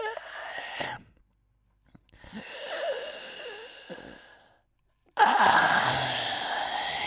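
Three long, loud, breathy breaths by a man voicing an old grandfather, about two seconds apart; the first opens with a short rising groan.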